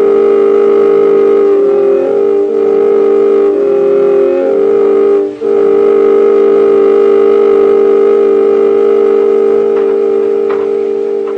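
Radio-drama music bridge: a short sustained phrase, its chords changing a few times in the first five seconds, then one long held chord that fades near the end. A few faint taps come near the end.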